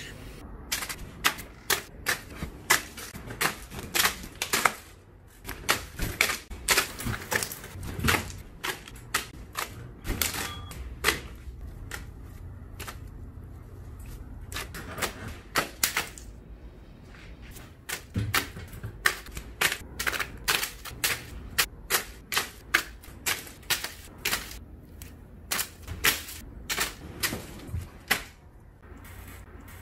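A rapid, irregular run of sharp clicks like typewriter keystrokes, several a second, thinning out for a few seconds in the middle.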